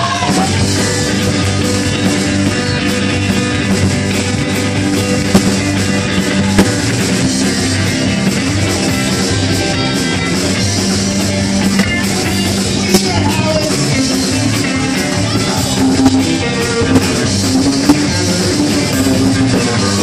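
A rock band playing live and loud: electric guitars, bass guitar and drums.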